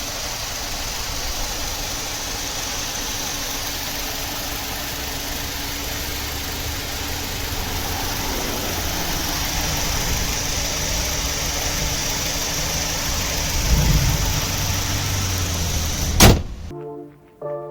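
2002 Saturn LW200's four-cylinder engine running steadily, a car with a random misfire, its low rumble swelling briefly near the end. A sharp click follows, then brass music starts.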